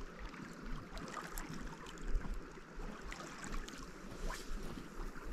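Small waves lapping on a pebble lakeshore, with wind rumbling on the microphone and faint scattered ticks.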